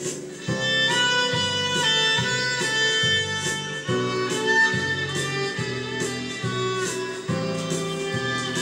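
Instrumental music: a violin-like melody held over a plucked-string accompaniment and moving bass notes, with a steady beat.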